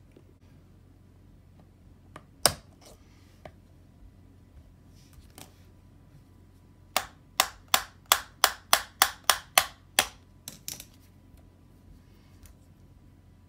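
A sharp click, then about ten sharp knocks at roughly three a second, as the axle is knocked through the hub of an Uppababy Vista stroller's rear wheel. The lock washer has been spread with pliers to free it.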